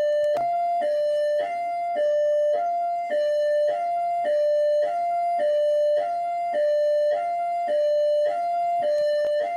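Rio de Janeiro Military Police (PMERJ) hi-lo siren: two steady notes, a higher and a slightly lower one, alternating about every half second without pause.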